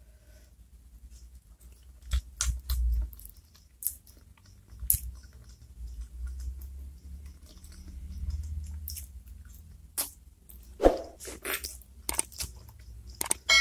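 Close-miked chewing of chili-sauced chicken feet, with wet mouth clicks and smacks at irregular intervals.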